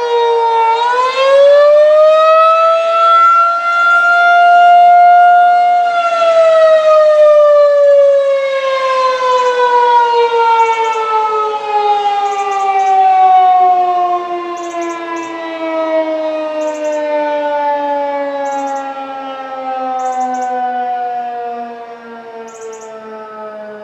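Federal Signal 2001-SRN outdoor warning siren sounding its attack signal: the tone dips, rises for about five seconds to its peak, then winds down in a long, slowly falling tone that grows quieter as the signal ends.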